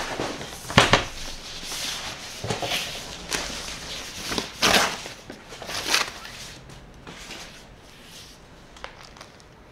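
Unpacking a large cardboard box: cardboard and packing paper rustling and scraping, with several sharp knocks and thumps during the first six seconds, then fading to faint rustling.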